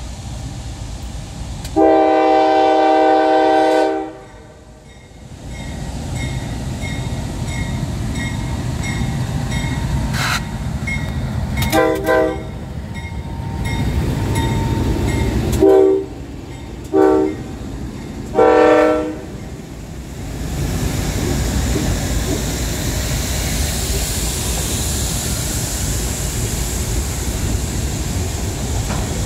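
Lead diesel locomotive of a CSX freight (GE CW44AH) sounding its multi-note air horn: one long blast about two seconds in, then four shorter blasts later on. Its bell rings about twice a second in between. Under it the locomotives' engines rumble past, giving way near the end to the steady rushing and rolling of the train's wheels on the rails.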